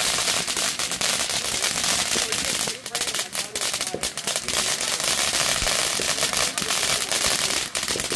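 Several ground fountain fireworks burning at once: a steady hiss of spraying sparks, thick with rapid crackling pops.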